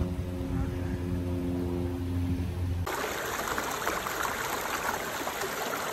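Held chords of background music, cut off abruptly about halfway through by the steady rushing and babbling of a shallow creek flowing over rocks.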